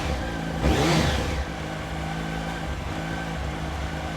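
Yamaha R1's inline-four engine idling through the stock exhaust, with one quick throttle blip about a second in that rises and falls back to a steady idle. The sound is muffled, which the owner calls suffocated, and it comes out from the centre of the bike.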